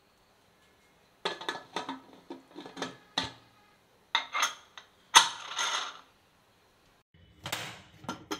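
Aluminium pressure cooker lid clattering and scraping against the pot's rim as it is fitted and locked shut, in three bunches of sharp metallic clicks, the loudest a little after halfway.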